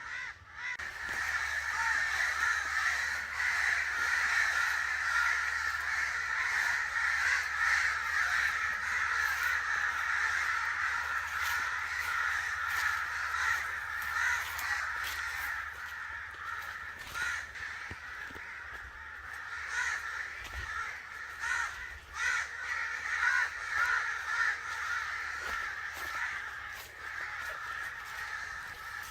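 Crows cawing without a break, many harsh calls overlapping into a continuous din.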